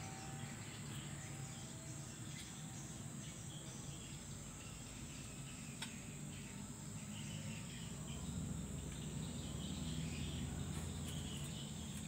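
Faint outdoor background of insects chirping steadily over a low hum, with one small tick about six seconds in.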